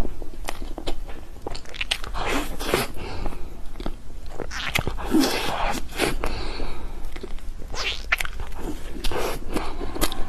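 Close-miked mouth sounds of someone eating soft cream cake: wet chewing, lip smacks and small clicks, irregular throughout.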